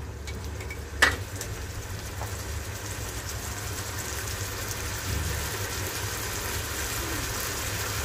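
Spiced onion-and-chilli masala paste sizzling and bubbling in oil and a little water in an electric cooker pot while it is cooked down, the sizzle growing slowly louder as it heats. A single sharp knock about a second in.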